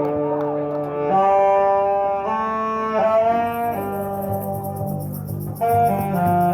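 Street brass band of saxophones and brass horns playing a series of held chords, moving to a new chord about every second or so. Short low pulses come in underneath about halfway through.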